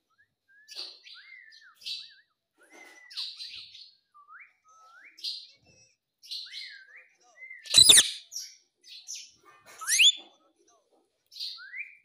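Indian ringneck parakeet chattering in short whistled chirps and gliding notes mixed with raspy mumbles. A loud harsh screech comes about eight seconds in, and a shrill rising whistle about two seconds later.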